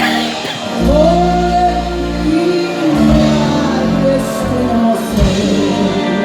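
Trembitas, long Hutsul wooden horns, playing long held notes at several pitches at once. Notes slide up into pitch as they start.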